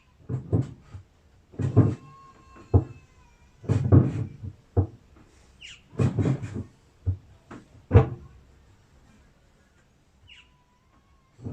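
Repeated clunks and knocks, in clusters about every two seconds, as the inner drum of a Samsung top-loading washing machine is lowered and worked back into place in the cabinet.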